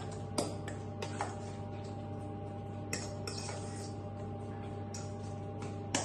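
A spoon stirring a soft banana, oat and sultana mixture in a stainless steel bowl, with a few light clicks of the spoon against the metal, spread a second or two apart, over a steady low hum.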